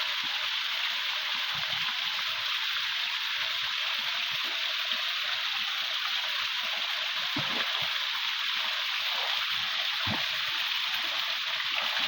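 Steady rush of a waterfall pouring into a river.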